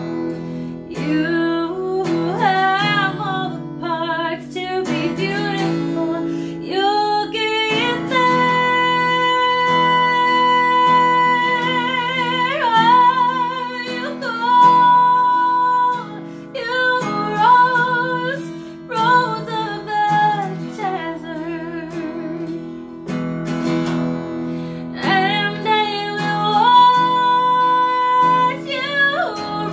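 A woman singing solo with her own acoustic guitar, a blues-soul melody with long held notes and vibrato over steadily played chords.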